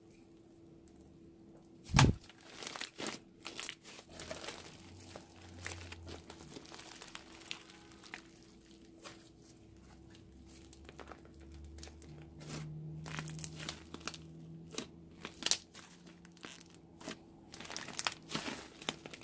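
Thick foam-bead slime being kneaded, stretched and pressed by hand: a run of sticky crackles and pops, with one loud sharp thump about two seconds in.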